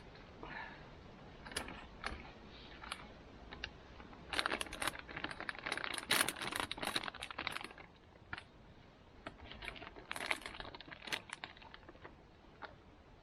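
Irregular clicks, clinks and rustles of gear being handled, in quick clusters at the middle and again near the end.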